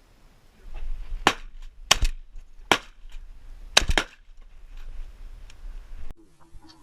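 Shotgun shots fired in quick succession: about five sharp reports in under three seconds, two of them in close pairs.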